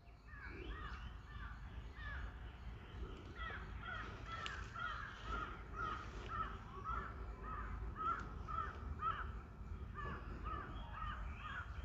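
Birds calling faintly: a long run of short calls following one another in quick succession, becoming denser after a few seconds, over a low steady rumble.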